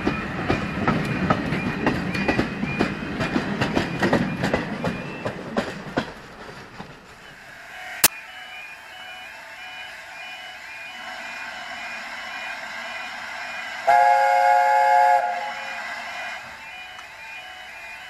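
Railway coaches rolling past close by, their wheels clicking over the rail joints, fading away about six seconds in. About fourteen seconds in, the LNER A4 Pacific Union of South Africa's three-note chime whistle sounds once, a steady chord lasting just over a second.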